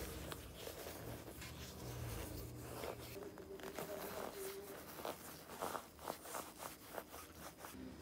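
Cotton lighter wool being pulled apart and packed into a brass lighter body by gloved fingers: dense, irregular fibrous rustling and scratchy tearing, busiest in the second half, with a brief squeak midway.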